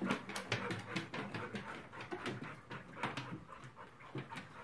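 An old dog panting after struggling out of the lake, with scattered light clicks, such as its claws on the wet wooden dock boards.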